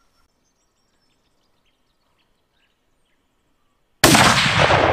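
A single 7mm Remington Magnum rifle shot about four seconds in, sudden and very loud, its report ringing on for about a second as it dies away. Before it, near quiet.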